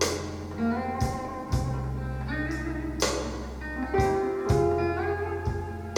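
Blues recording played over Bowers & Wilkins 705 Signature loudspeakers: an instrumental passage of guitar over a held bass line, with a beat striking about once a second.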